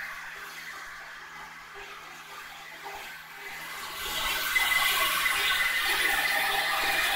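Diesel engine of a fire pump set running with a steady rushing noise that grows clearly louder about four seconds in.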